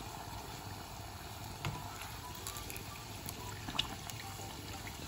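Tortilla wraps deep-frying in a pan of oil at medium heat: a steady sizzle with a few sharp ticks and pops.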